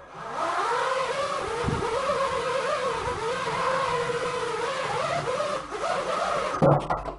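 Diatone GT200S 5-inch FPV racing quadcopter spinning up and flying, its brushless motors and propellers whining, the pitch wavering up and down with the throttle. A few sharp knocks near the end.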